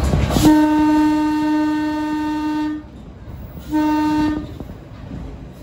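Horn of a Kominato Railway diesel railcar sounding one long blast of about two seconds, then a short blast about a second later, over the running noise of the train.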